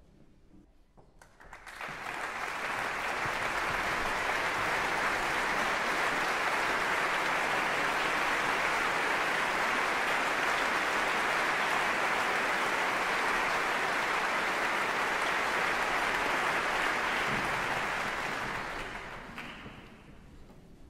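Concert audience applauding. It swells in about a second and a half in, holds steady, and dies away near the end.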